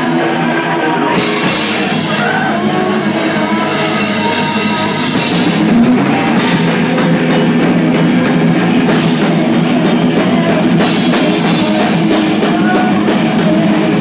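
Live rock band playing loud in a room: electric guitar, bass guitar and a drum kit. The cymbal hits get busier and the music a little louder about six seconds in.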